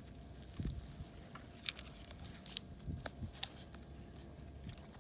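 A gloved hand breaking up and sifting through loose, freshly dug soil clods, with soft rustling and a few scattered sharp clicks and ticks as the clods crumble and the pinpointer probes the dirt.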